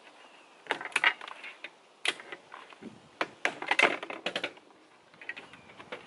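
Runs of quick, light clicks and rattles from a car door's plastic trim being worked by hand: a short run about a second in, a sharp click near two seconds, and a dense run from about three to four and a half seconds.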